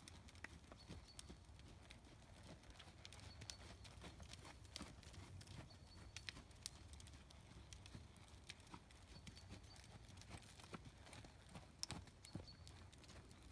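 Faint hoofbeats of a Paint horse trotting over ground poles on sand footing, with scattered short knocks.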